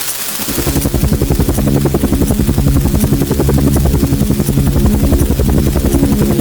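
Helicopter sound effect: rotor blades chopping rapidly and evenly over a low steady drone, starting about half a second in.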